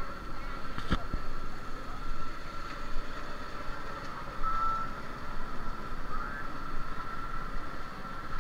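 Open-air market ambience: a continuous low rumble of background noise under a steady, unbroken high-pitched tone, with a single sharp knock about a second in.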